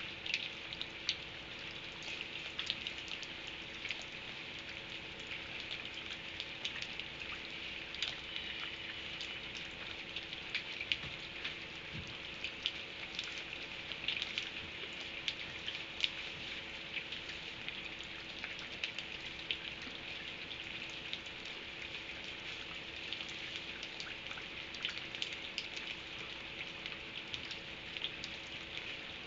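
Steady rain falling, with many small sharp drop hits scattered through it and no letting up. A faint steady hum runs underneath.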